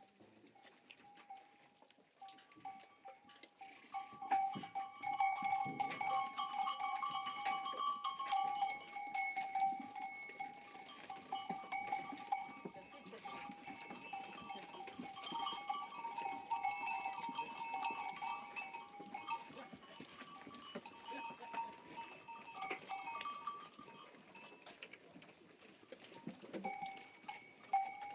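Many bells on a moving flock of livestock clinking and ringing together in overlapping steady tones; they grow louder about four seconds in.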